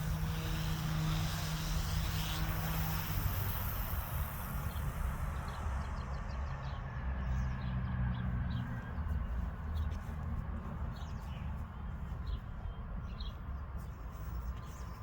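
Goosky S2 RC helicopter's electric motors and rotor blades running with a steady whine, its pitch falling about three seconds in as the rotor slows, then a lower, fainter hum continuing.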